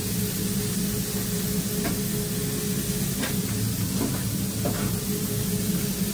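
Steady machine hum and hiss of a commercial kitchen, with a few light knocks from buns and plates being handled on the steel counter.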